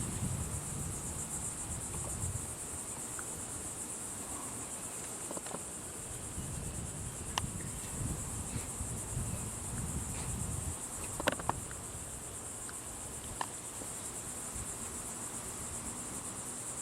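Steady, high-pitched chorus of insects such as crickets, with a low rumble swelling and fading underneath and a few sharp clicks.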